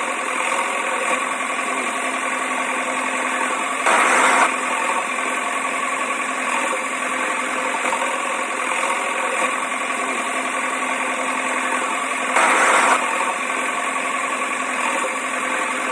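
Small motor of a toy vehicle running steadily, with a higher, thin drone and two brief louder surges, about four seconds in and again near twelve and a half seconds.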